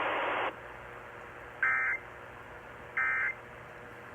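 Emergency Alert System end-of-message data bursts: short raspy digital warbles of two-tone data, repeated twice about 1.4 seconds apart, signalling the end of the alert. Before them a burst of hiss cuts off about half a second in.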